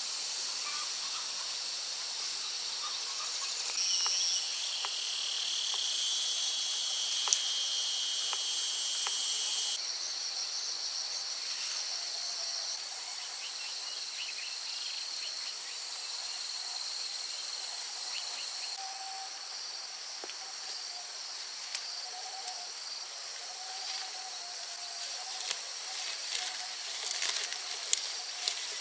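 Chorus of insects buzzing steadily at a high pitch. A louder insect joins about four seconds in and cuts off abruptly near ten seconds. A few sharp clicks come near the end.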